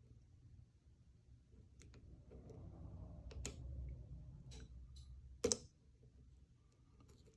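Lock pick working the pins of a five-pin pin-tumbler lock under tension: scattered faint clicks and scraping over a low handling rumble, with one sharper, louder click about five and a half seconds in.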